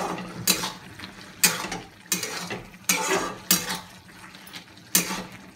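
Long metal spatula scraping and knocking against a steel kadhai as potato and spinach are stirred, about six sharp strokes. A faint sizzle sits underneath as the water the spinach released cooks off in the open pan.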